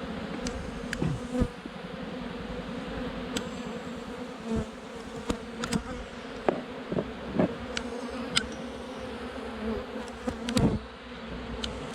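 Honeybees from an opened nuc buzzing in a steady, dense hum. Scattered light clicks and knocks come through as the wooden frames are handled and set into the hive.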